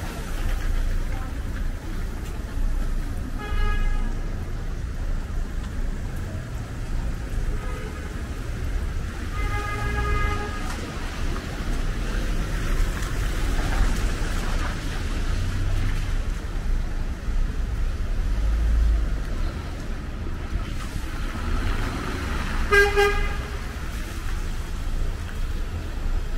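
City street traffic: a steady low rumble of vehicles, with car horns tooting three times: briefly about four seconds in, for about a second near ten seconds, and once more near the end.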